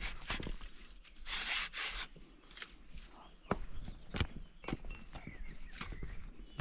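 Footsteps and rustling of someone walking along a rough bank: irregular knocks and clicks, with a longer brushing scrape about a second and a half in.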